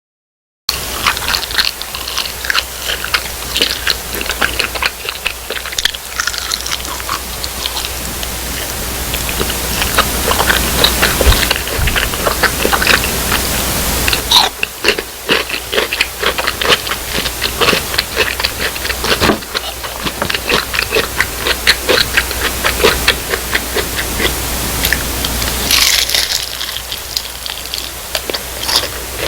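Close-miked biting and chewing of crisp fried food, a dense, irregular run of loud crunches from the fried batter.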